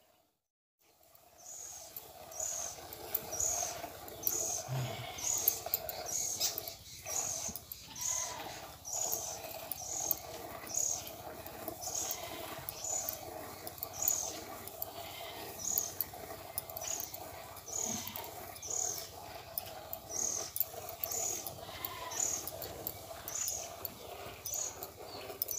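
Cow being milked by hand into a bowl: a short hiss of milk squirting with each pull on the teats, repeating evenly about one and a half times a second, starting after a brief silence at the opening. A steady hum runs underneath.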